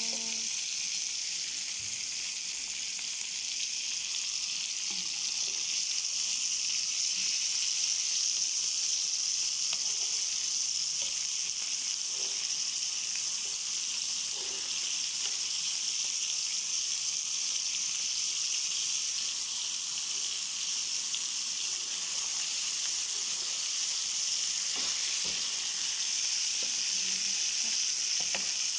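Meat pieces on the bone frying in hot oil in a nonstick pan: a steady sizzle, with a few light scrapes and knocks now and then as a spoon and spatula turn the meat.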